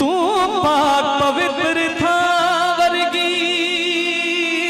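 Live devotional song music: a melody line with keyboard accompaniment that wavers and bends in ornaments for the first second or so, then settles into long held notes.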